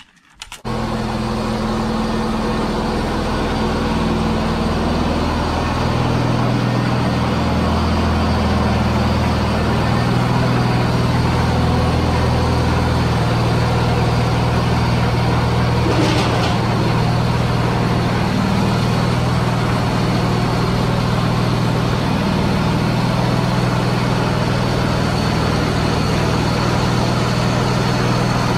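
Riding lawn tractor's engine running steadily, with a small shift in its note a few seconds in.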